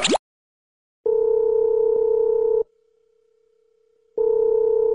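Telephone ringback tone: two long steady beeps, each about a second and a half with a similar gap between them, the ringing a caller hears while waiting for the other end to answer.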